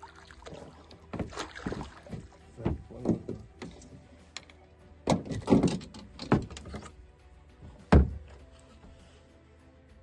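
A hooked pollack splashing and thrashing at the surface beside a small boat, with irregular knocks against the hull. A heavy thump about eight seconds in is the loudest.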